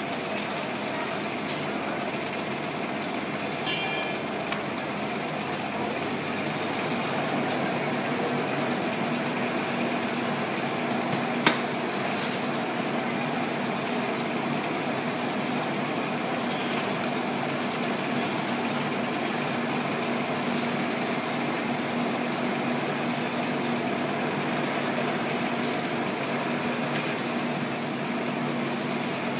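Fire trucks' diesel engines running steadily, with a steady low hum joining in about seven seconds in. A sharp click comes a little before halfway, and there are a couple of brief hisses.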